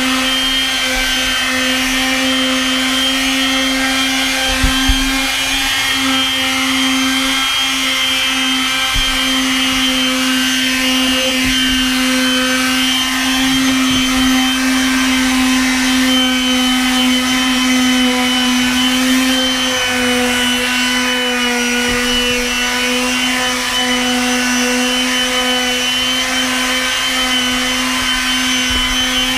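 Random orbit palm sander running steadily against deck boards, a constant motor hum with a few light knocks about five seconds in.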